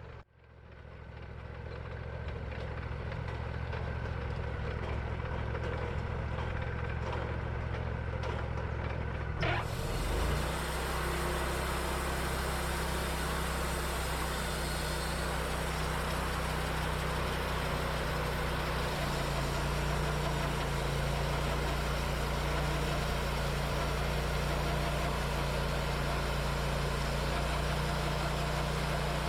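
Wood-Mizer LT40 sawmill's engine running steadily, fading in over the first two seconds, with a click and a change in its note about ten seconds in.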